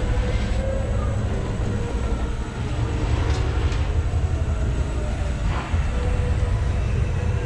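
Engine 86 amusement ride car running along its track, a steady low rumble with rattling, heard from inside the enclosed car.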